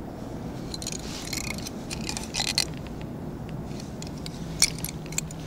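Small clicks, light rattles and scrapes of hands working a cheap ice-fishing reel and its line and bait feeder, with the line tangled, over a steady low background hum.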